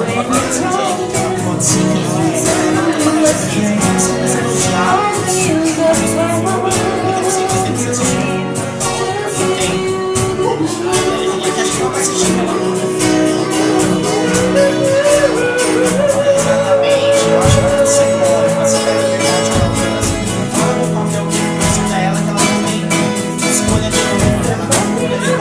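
Acoustic band playing live: two female voices singing over two acoustic guitars, with hand percussion keeping a steady, fast rhythm.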